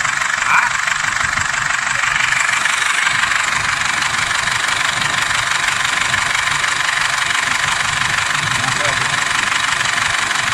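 Diesel engine idling steadily with its usual clatter, running while a decarbonizing cleaner is fed into it.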